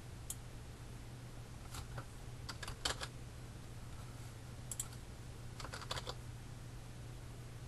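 Computer keyboard and mouse clicks: a few scattered taps and two short runs of keystrokes, over a steady low hum.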